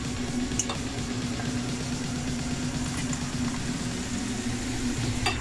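Green plantain chunks frying in hot oil in a steel pot: a steady sizzle and bubbling, the first par-fry for patacones, over a steady low hum. A few light clicks are heard, about half a second in and near the end.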